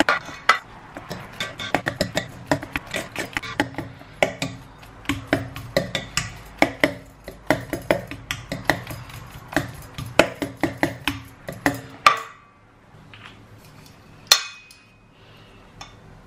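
Wire potato masher mashing ripe bananas in a stainless steel mixing bowl: repeated clanks of metal on the bowl, about three a second, stopping about twelve seconds in. About two seconds later comes a single sharp metallic clink with a brief ring.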